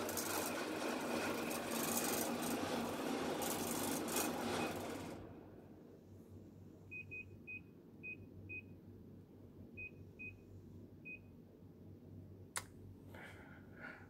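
The indoor unit of a Daikin split air conditioner is blowing air, and the rush stops about five seconds in as the unit switches off. It shuts down because Heat mode was selected and this cooling-only model has none. After that come a run of about eight short high beeps at uneven spacing, then one sharp click near the end.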